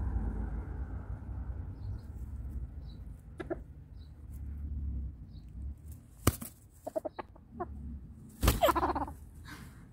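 Rooster clucking in short low calls: a few around three and a half seconds in, a run of them around seven seconds, and a longer, louder call near the end. Two sharp knocks, the second just before that last call, are the loudest sounds.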